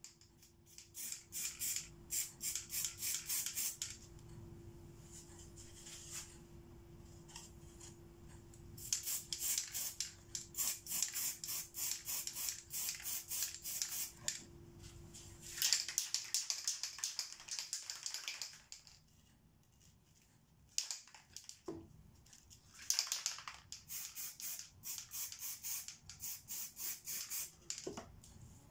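Aerosol spray-paint can being shaken in several spells, its mixing ball rattling fast, about five or six rattles a second, with a couple of longer hisses of paint spraying in between.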